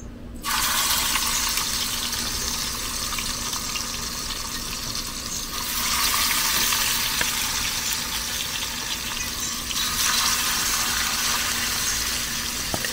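Pieces of marinated carp sizzling as they are lowered into hot olive oil. The sizzle starts suddenly about half a second in as the fish hits the oil, and carries on as a steady hiss that swells somewhat from about six to ten seconds in.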